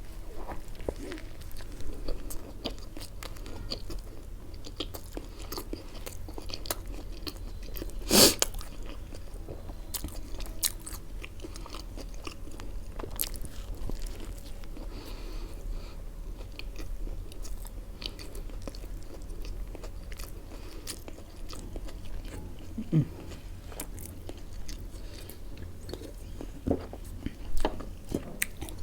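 Close-miked eating: a person biting and chewing food, with many small wet clicks and crunches and a louder crunch about eight seconds in.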